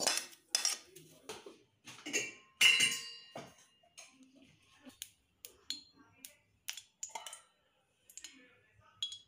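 Metal spoon and ladle clinking and scraping against metal cooking pans and bowls: a string of short, sharp clinks. The loudest, about two and a half seconds in, rings on briefly.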